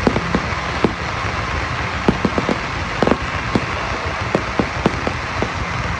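Aerial fireworks bursting: about a dozen sharp bangs and pops at uneven intervals over a steady background noise.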